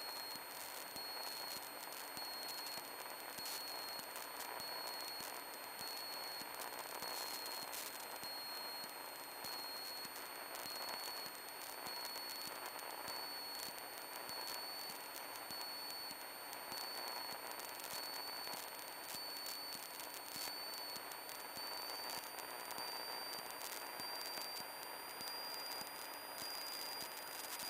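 Steady hiss with faint crackling clicks from an aircraft radio/intercom audio feed, with a thin high-pitched whine that slowly rises a little in pitch.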